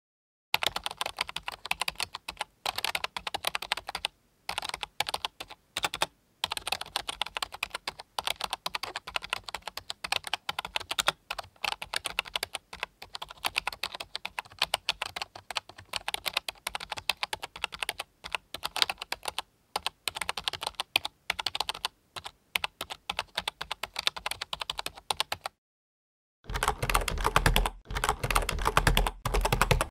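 Computer keyboard typing: rapid, irregular keystroke clicks in fast runs with short pauses. After a break of about a second near the end, a second run of typing starts with a heavier, deeper thump under the clicks.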